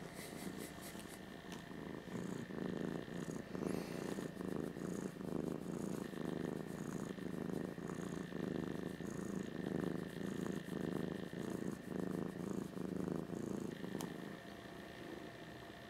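A black domestic cat purring steadily as its head is stroked, the purr swelling and easing with each breath, then fading near the end.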